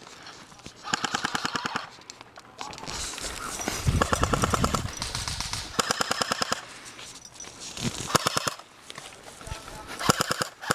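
Automatic airsoft rifles firing short full-auto bursts of rapid, evenly spaced shots, about five bursts, each lasting under a second. A louder stretch of handling or rustling noise comes near the middle.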